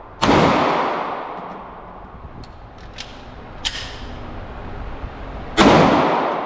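Two shots from a Canik SFx Rival 9mm pistol, one just after the start and one about five and a half seconds in, each ringing out in a long echo off the indoor range's walls. Between them come a few light clicks of the mid-drill reload.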